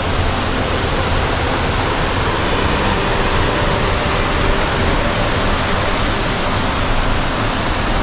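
Waterfall in a rocky gorge: a loud, steady rush of falling water.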